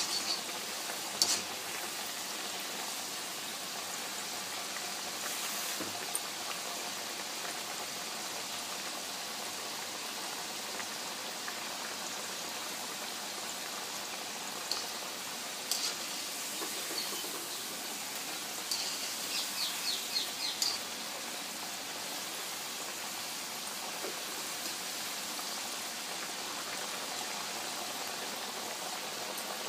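Potato fries deep-frying in hot oil in a kadai: a steady, even sizzle. A few clicks and scrapes of a wire skimmer against the pan, with a quick run of them about two-thirds of the way through.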